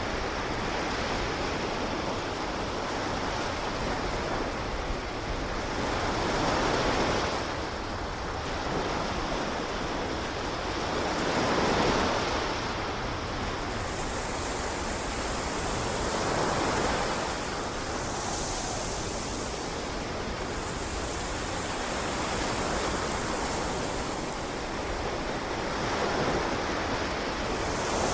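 Ocean surf: a steady wash of noise, with waves swelling and breaking every four to six seconds.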